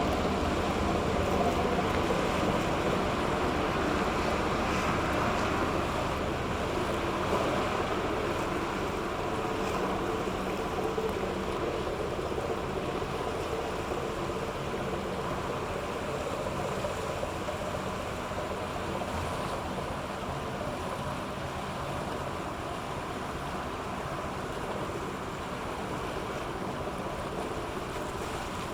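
Steady engine drone of a passing cargo ship mixed with rushing water and wind noise, slowly growing fainter.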